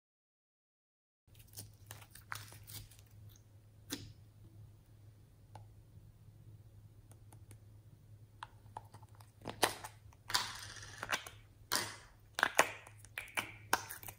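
Slime being worked by hand, making sticky clicks and pops. After about a second of silence the clicks are faint and sparse, then about halfway through they grow louder and more frequent, with a brief crackly stretch.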